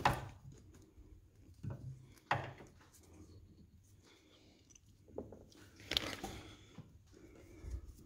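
Faint handling noises from hands working a wiring harness and peeling back its protective covering: a sharp click at the start, then a few scattered clicks and short scrapes with quiet between.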